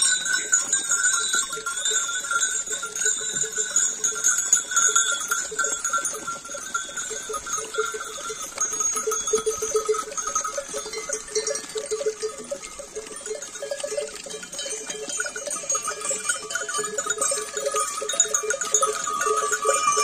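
Many sheep bells jingling and clanking together, on and on, as a flock of sheep moves about.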